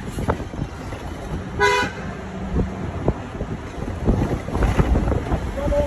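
A vehicle horn toots once, briefly, about a second and a half in, over the steady low rumble of a vehicle on the move.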